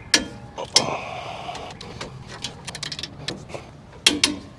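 Torque wrench tightening a 19 mm brake caliper bracket bolt: quick ratchet ticking, with a few loud sharp clicks, the wrench clicking as it reaches its set torque of 88 lb-ft.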